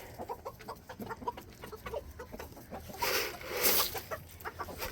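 A flock of chickens clucking in many short, scattered calls, with a louder rustling noise about three seconds in.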